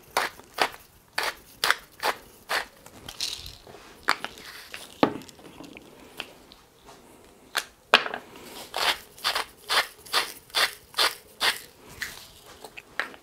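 Wooden salt and pepper mills being twisted by hand over a jug. Each turn gives a short gritty crunch as the grinder cracks the salt and peppercorns. The crunches come singly at first, then in a quick run of about three a second.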